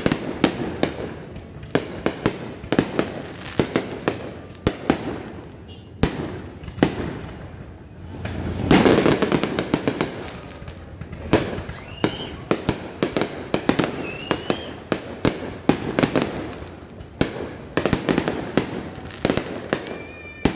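Aerial fireworks bursting in quick succession, a steady run of sharp bangs that thickens into a dense, loudest barrage of overlapping bursts a little before the middle.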